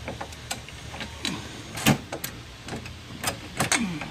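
Metal clinks and knocks as a bolt, washer and steel back-seat frame are handled and fitted together, with a sharper knock about two seconds in.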